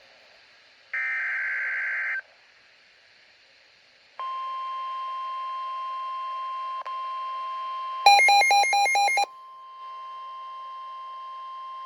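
NOAA Weather Radio alert signalling a flash flood warning. About a second in there is a short burst of digital SAME header tones. After a pause comes the steady 1050 Hz warning alarm tone, with a loud, rapidly pulsing electronic beeping over it for about a second near the middle.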